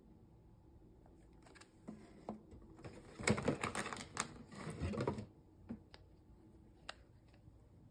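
A hand rummaging inside a cardboard mystery box: packaged toys knocking together and packaging rustling in a quick clatter for about two seconds in the middle, with a few light taps and clicks before and after.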